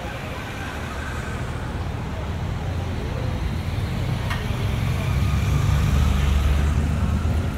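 A motor vehicle's engine rumble drawing closer and growing louder over several seconds, loudest about six seconds in, over general road traffic.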